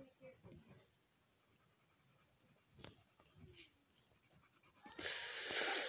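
Colored pencil scratching faintly across a coloring-book page. About five seconds in, a loud rushing noise close to the microphone swells up and is the loudest sound.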